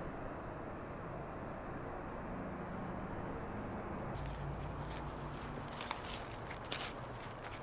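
Crickets chirring steadily in the background, with a few faint knocks in the second half.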